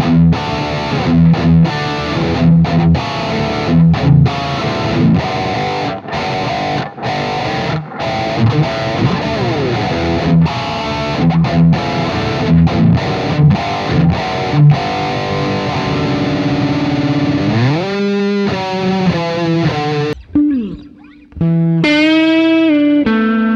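Harley Benton SC-550 Deluxe electric guitar played through a distorted amp tone, riffing with chugging chords and quick runs. Just after 20 seconds in it stops briefly, then a few single notes ring out, the last one held.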